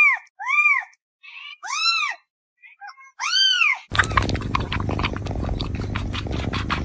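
A kitten meowing: four short, high, arching mews in quick succession, with a few faint squeaks between them. About four seconds in, the meows give way to a noisy stretch of rapid clicks and rustling.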